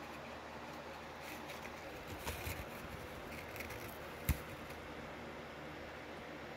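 Faint handling of crisp cooked bacon strips on a foam plate: soft rustles around two seconds in, then one short sharp click about four seconds in.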